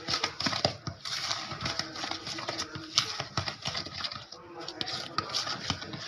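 Spatula stirring and scraping a thick, creamed butter, sugar and semolina mixture around a plastic mixing bowl: a continuous run of quick, irregular scrapes and taps.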